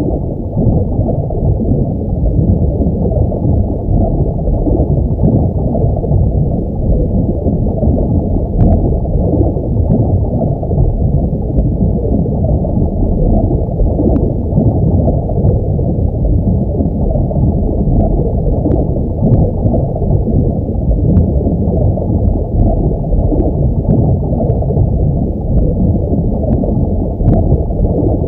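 Underwater ambience sound effect: a steady, muffled rush and gurgle of water, with faint scattered clicks that come more often in the second half.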